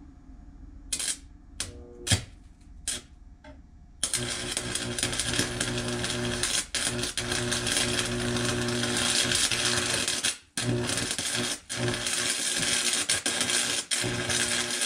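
Electric arc welding on a steel porthole frame: a few short arc strikes, then from about four seconds in a steady crackling, hissing arc with a hum, broken off briefly a few times.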